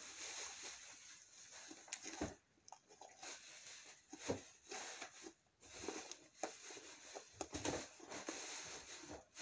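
Sticky white Elmer's glue slime being kneaded and pulled between the hands, making irregular soft squelches and clicks.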